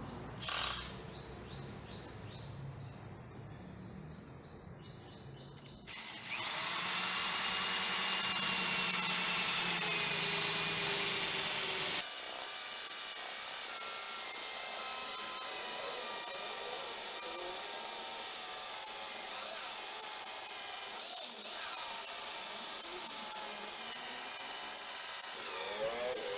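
Cordless drill with a spade bit boring through a wooden dowel. About six seconds in, it starts and runs steadily under load, then goes on a little quieter from about halfway.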